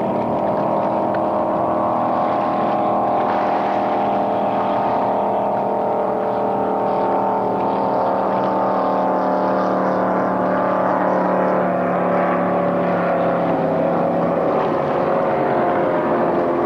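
Racing powerboat engines running at high revs on the water: a steady, unbroken engine drone that sinks slightly in pitch in the second half.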